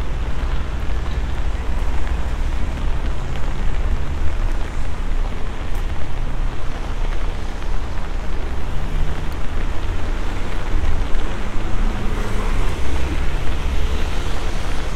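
Heavy rain falling on a city street: a steady hiss of drops on wet pavement and road, over a continuous low rumble.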